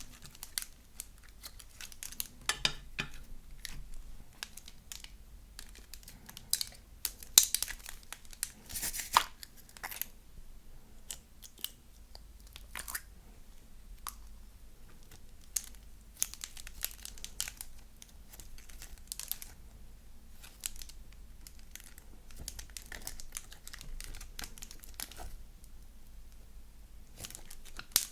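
Slime being squeezed, stretched and folded by hand, giving irregular sticky crackles, clicks and small pops, with a denser run of louder crackles a few seconds in.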